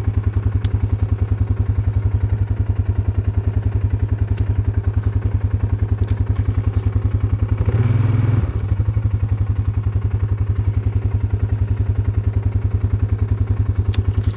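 Four-wheeler (ATV) engine running at a steady idle with a rapid, even chug, swelling briefly about eight seconds in. A few faint sharp clicks sound over it.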